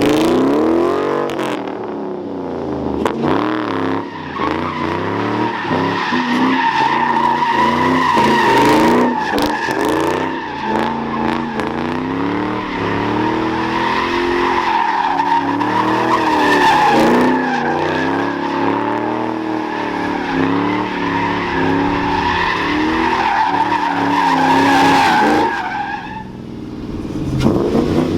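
Ford Mustang's 4.6 V8 revving up and down while the rear tyres squeal in a long drift. The squeal starts about two seconds in and breaks off briefly near the end.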